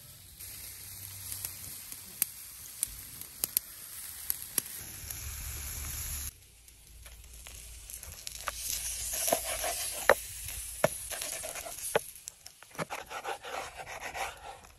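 Steaks sizzling on a wire grill over glowing wood embers, with a few sharp crackling pops. After an abrupt cut about six seconds in, a knife slices through the grilled steak on a wooden cutting board, with repeated scraping strokes and clicks.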